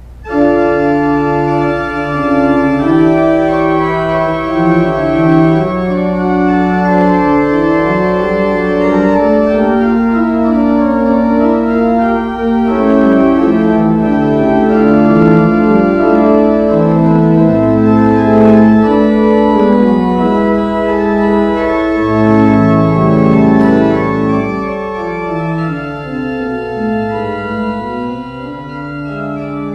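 Church organ playing slow, sustained chords, starting suddenly and growing softer near the end.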